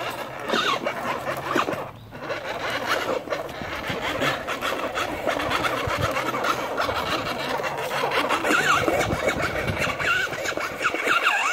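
Children's battery-powered ride-on quad on a nearly dead battery, its small electric motor and plastic gearbox whirring weakly as it is pushed over grass. High wavering squeals run through it.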